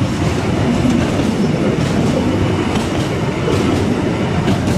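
Open-sided passenger car of a 760 mm narrow-gauge forest railway rolling along the track: a steady rumble of wheels on rail with a few faint clicks.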